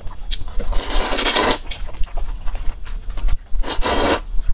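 A person slurping glass noodles out of spicy broth, with two long wet slurps, about a second in and near the end, and small wet mouth and chewing clicks between them.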